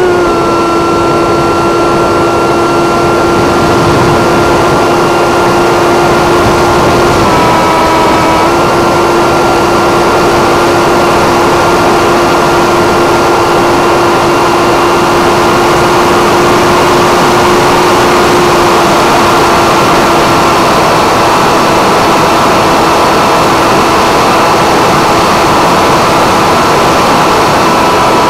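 Electric brushless motor and pusher propeller of a Multiplex FunJet RC plane on a 6S battery, heard from its onboard camera as a steady high whine under a heavy rush of air over the microphone. The pitch dips briefly about seven seconds in, then returns, and eases slightly lower past twenty seconds.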